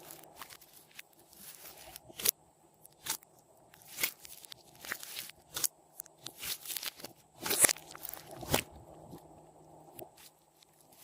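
Glossy slime being worked by hand, giving irregular sticky pops and crackles, with the loudest pops about seven and a half and eight and a half seconds in.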